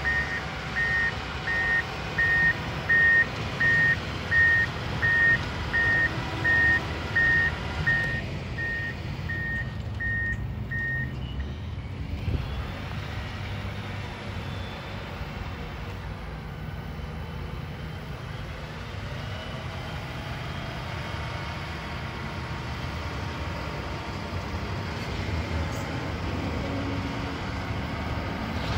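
John Deere 672G-series motor grader with its diesel engine running and its reversing alarm beeping about one and a half times a second while it backs up. The beeping stops about eleven seconds in, and the engine runs on steadily as the grader moves forward.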